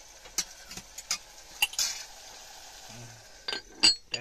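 A metal spoon scrapes and clinks against a small metal cooking pot as vegetable curry is stirred, over a faint steady sizzle. Near the end, the pot's metal lid clacks down; this is the loudest sound.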